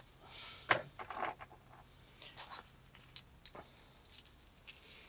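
Metal wallet chain clinking and jingling in irregular bursts as it is handled.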